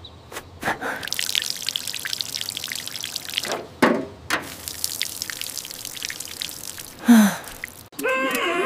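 Water sprinkling and dripping from a watering can onto soil and seedlings, in two stretches with a short break in the middle. A brief loud falling swoosh comes about seven seconds in.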